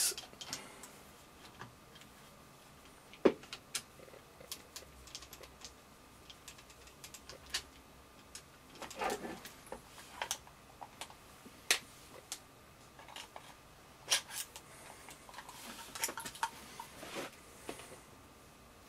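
Small metal and plastic parts of an AGM HK416 airsoft rifle and hand tools clicking, tapping and knocking on a wooden workbench as the magazine release is taken off. The clicks are irregular, a few louder than the rest, with short scraping sounds about halfway through and again near the end.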